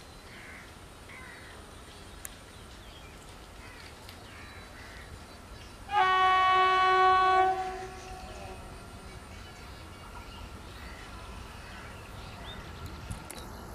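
WAG-9 electric locomotive horn sounding one loud blast of about a second and a half, about six seconds in, over the faint steady rumble of the approaching freight train.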